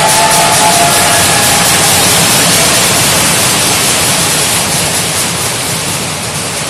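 A basketball team yelling together in a huddle: a loud, steady roar of many voices in an echoing gym hall, easing slightly toward the end.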